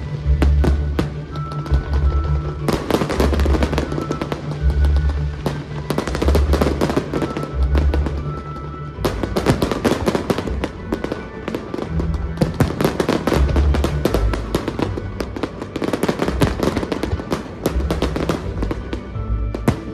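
Aerial fireworks bursting and crackling in dense volleys over music with a pulsing bass line, the crackle thickening again about halfway through.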